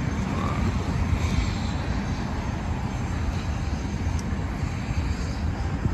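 Helicopter running at a heliport: a steady low engine and rotor rumble.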